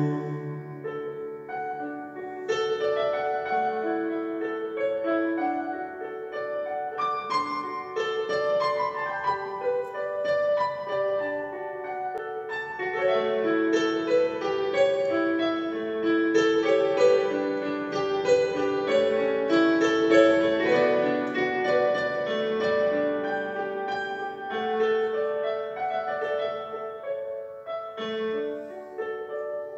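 Digital piano played solo: an instrumental passage of chords and melody notes, with no singing.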